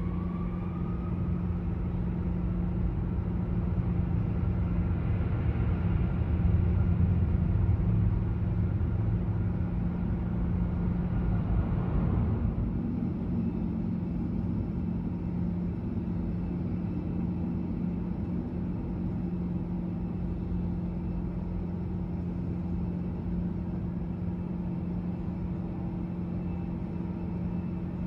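Airbus A320 cabin during the takeoff roll: the jet engines spool up with a rising whine, and a heavy rumble builds and peaks. About twelve seconds in the low rumble drops away, leaving a steady engine drone.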